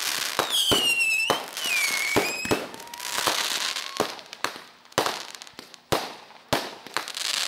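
Aerial fireworks going off in a rapid, irregular string of bangs and pops. In the first couple of seconds two whistling shells sound one after the other, each falling in pitch, with crackle between the bangs.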